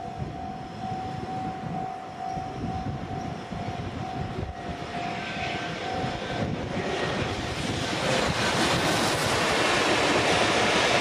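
A Japanese level-crossing alarm rings a rapidly repeating ding through the first half. A JR Freight train with an EH200 electric locomotive in its consist then approaches and passes close by. Its wheel and rail rumble grows steadily louder, covers the bell, and is loudest near the end.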